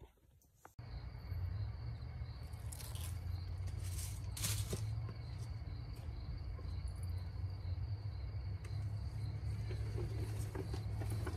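Outdoor summer ambience: insects chirping in a steady, even pulse over a continuous low rumble. It begins abruptly about a second in.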